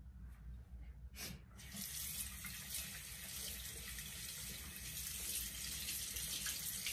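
A sink tap running: a short knock about a second in, then water runs steadily into the basin.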